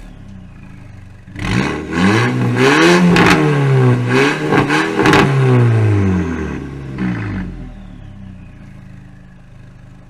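Volkswagen Golf GTI MK5's 2.0-litre turbocharged four-cylinder, through a bypass-valve exhaust with the mid muffler deleted, idling and then revved hard several times in quick succession about a second in, the pitch rising and falling, before dropping back to idle.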